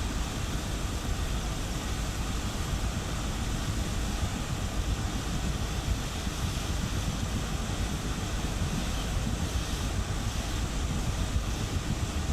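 Steady low rumble of a ship's engines while it berths, with wind buffeting the microphone.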